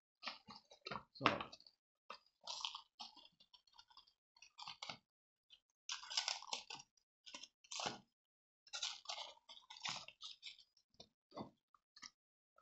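Crinkling and rustling of plastic packaging in irregular bursts, with a few light knocks from things being handled on the table.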